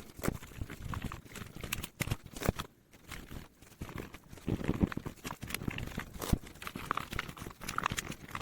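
Cotton swabs scrubbing and hands handling the plastic parts of an IBM Model M keyboard: irregular rubbing and scraping with scattered small clicks and knocks.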